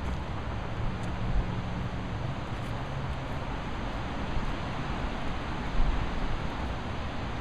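Steady outdoor background noise with a low rumble, and two soft low thumps, about a second and a half in and again near six seconds.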